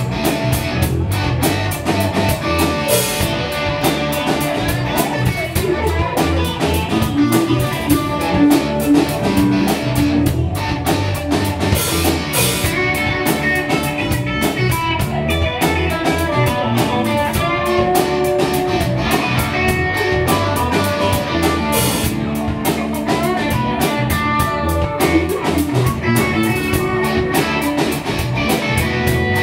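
Live rock band playing: guitar over a drum kit, with a few cymbal crashes.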